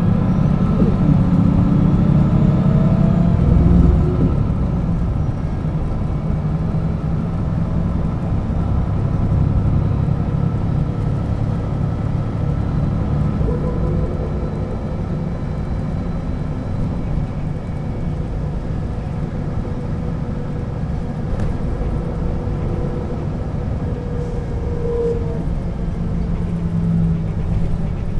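1996 Setra S 315 UL city bus under way: the engine pulls loudly for the first few seconds with rising whine tones, then eases off about four seconds in and runs steadily with a level drivetrain whine.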